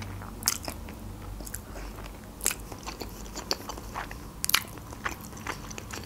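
Chewing a mouthful of soft spaghetti in a creamy sauce, with many wet mouth clicks and smacks; the sharpest come about half a second, two and a half and four and a half seconds in.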